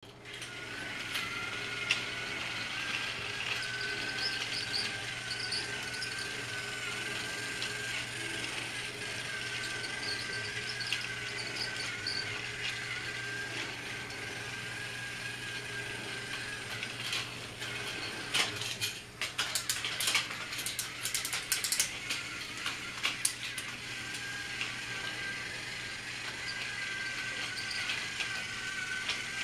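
Battery-operated Thomas the Tank Engine toy train running on plastic track: its small motor and plastic gears give a steady, slightly wavering whine with a low hum and a rattle. A run of sharp clicks and clacks comes between about 17 and 23 seconds in.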